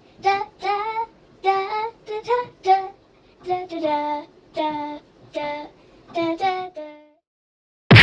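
A child's voice singing a short tune in clipped syllables, about two a second, stopping about seven seconds in. A short, loud noise comes at the very end.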